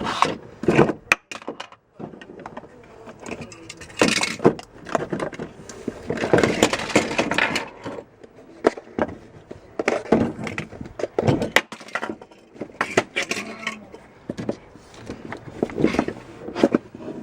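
A person making dubstep-style mouth and throat noises, with phlegm caught in the throat. They come in irregular buzzing and gurgling bursts, with sharp clicks and short pauses between.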